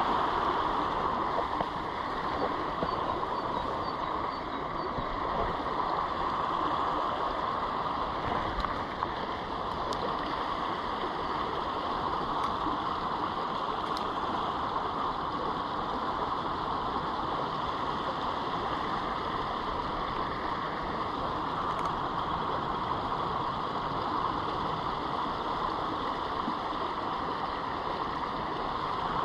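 Small stream flowing steadily over shallow riffles, a constant even sound of running water.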